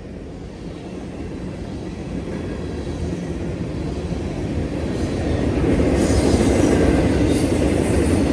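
Freight train drawing nearer, its rumble growing steadily louder and peaking after about five seconds. A thin, high wheel squeal comes in around six seconds in.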